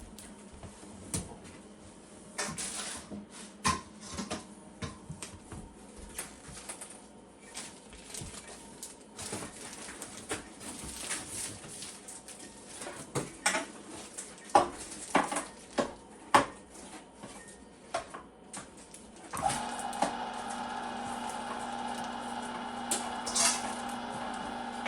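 Metal and kitchenware clinking and clattering as parts are handled, then about 20 seconds in a Cabela's Carnivore electric meat grinder switches on and runs with a steady hum.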